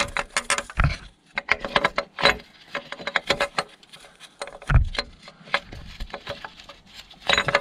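Irregular metallic clicks, taps and clinks of hand tools and engine parts being worked by hand, with a couple of duller knocks about a second in and just before five seconds.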